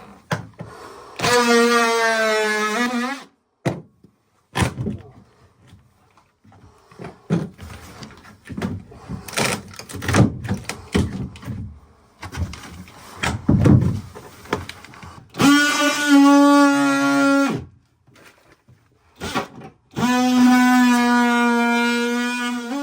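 Oscillating multi-tool cutting fibreglass floor in three short runs of a steady buzzing whine, each starting and stopping sharply, with irregular knocks and scraping between the runs.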